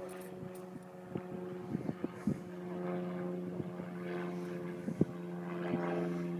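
A steady engine drone holding one pitch, with a few sharp clicks and knocks over it, the loudest about five seconds in.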